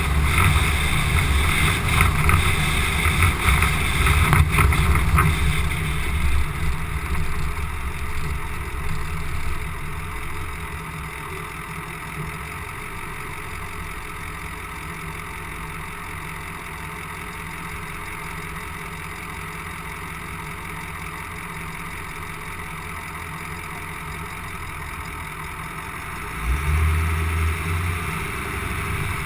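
Straight-piped 2004 Ford F-250's 6.0L Power Stroke V8 turbodiesel running, loud with wind and road noise at first, then settling to a steady idle. Near the end the engine suddenly revs up as the truck pulls away.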